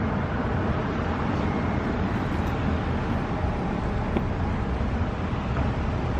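Steady low rumble of street traffic outdoors.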